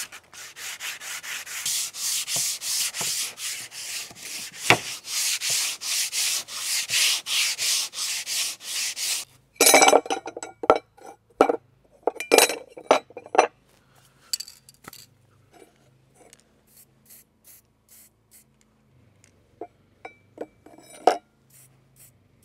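Sandpaper rubbed back and forth by hand over wood, about two strokes a second, stopping abruptly about nine seconds in. Scattered light clicks and taps follow.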